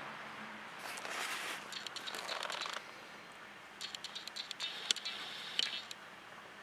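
Hands picking up and turning a graphics card: a brief scrape, then irregular runs of small clicks and rattles from its plastic shroud and metal parts, with two sharper clicks near the end.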